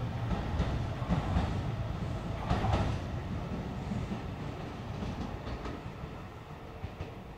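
Shin-Keisei 8900 series electric train running on the line, a heavy rumble with wheels clicking over rail joints, fading steadily as the train moves away.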